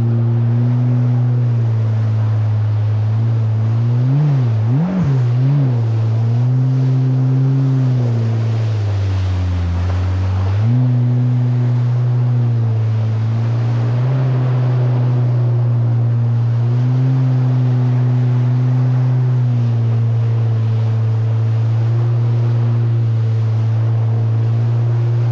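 2019 Yamaha GP1800R SVHO jet ski's supercharged four-cylinder engine running at a steady throttle. Its pitch rises and falls quickly a few times about four to six seconds in, then drops around nine seconds in and picks back up about ten and a half seconds in. Wind and water rush under the engine note.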